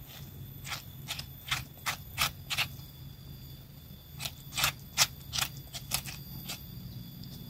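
Young papaya being scraped into shreds with a scraper, in short quick strokes: about a dozen scrapes in two bursts.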